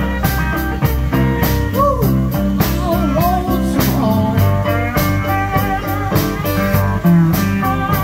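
Blues band playing an instrumental passage between vocal lines: electric guitar, drum kit, upright bass and keyboard, with a steady drum beat and bending melody notes.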